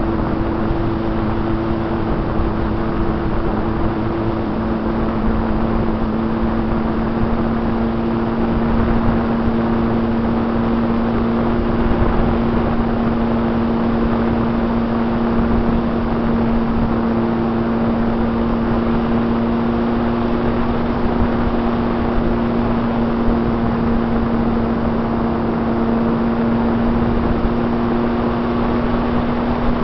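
RC airplane's motor and propeller running steadily in flight, heard from a camera mounted on the plane: a steady hum with two held tones over a rush of air.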